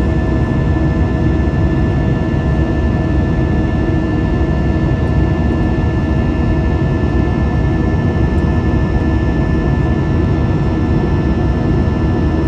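Airplane cabin noise in cruising flight: a steady, loud engine and airflow roar, heaviest in the low end, with a couple of faint steady hums over it.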